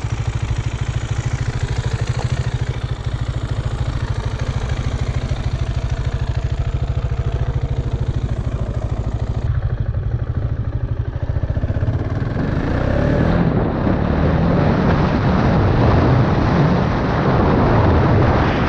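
KTM Duke motorcycle engine running with a steady low pulse as the bike rolls along. About twelve seconds in it pulls harder and grows louder, with wind noise on the helmet-mounted microphone rising over it.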